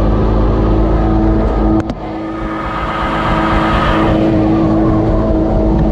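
BMW E36 325i inline-six engine running hard during a street drift. About two seconds in there are two sharp clicks and the level dips briefly, then the engine note builds again.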